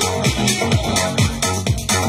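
Electronic dance music mixed on a DJ controller, with a steady kick drum about two beats a second and a ticking hi-hat.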